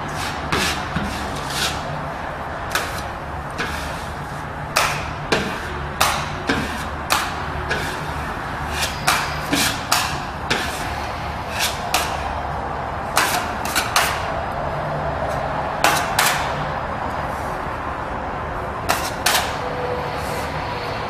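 Irregular sharp taps and knocks of a metal putty knife on plasterboard while filler is worked around a recessed wall box, over a steady low hum.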